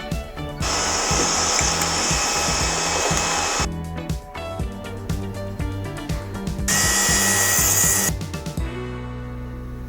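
Hot-air rework gun blowing in two bursts, about three seconds then about a second and a half, as it heats the charging IC for desoldering from the phone's board; background music underneath.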